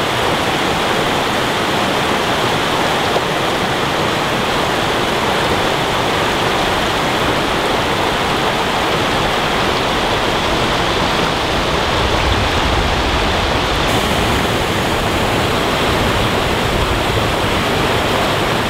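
Steady rush of water from a fast-moving mountain stream tumbling over rocks.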